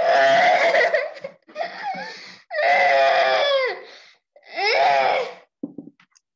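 A young boy crying: a run of loud, long wailing cries, each about a second, with short breaths between, dying away into brief sobs near the end.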